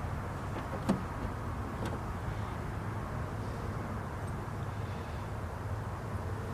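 Steady low hum of a vehicle running, with two light clicks about a second apart near the start.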